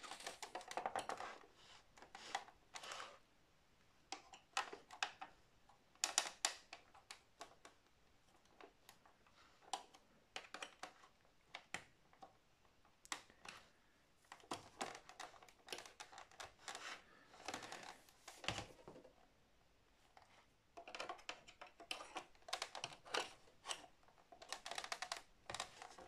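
Plastic back panel of an Acer Aspire C24 all-in-one computer being prised away from the screen with a metal spatula tool: irregular clusters of sharp clicks and snaps as the panel's clips give and the casing flexes, with quieter gaps between.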